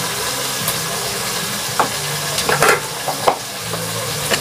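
Crab sizzling as it sautés in a pot on a gas stove, a steady frying hiss. A few sharp clinks and knocks of kitchen utensils come about two to three seconds in as the dry seasonings go into the pot.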